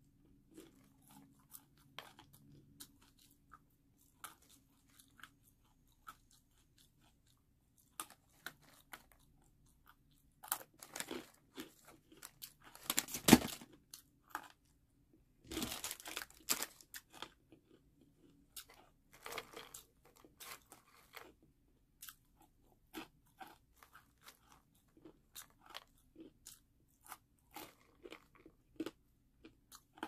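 A person biting and chewing crunchy food, with faint scattered chewing clicks throughout. Louder crunches cluster around the middle, the loudest about 13 seconds in.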